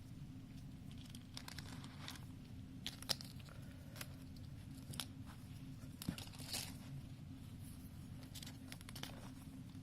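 Faint crinkling of plastic packaging and small clicks as the fan and its cord are handled, over a steady low hum.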